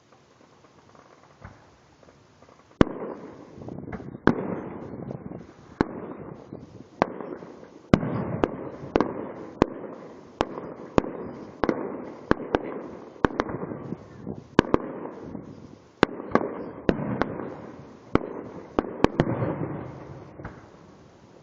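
Fireworks going off: a long string of sharp bangs, about one or two a second and some in quick pairs, over a steady rush of noise. It starts about three seconds in and dies away near the end.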